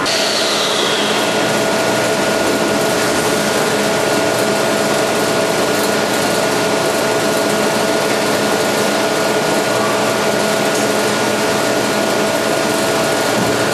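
VC999 K8 automatic belt vacuum chamber packaging machine running: a steady hiss of air and machinery with a few held hums, and a short falling whistle in the first second or so.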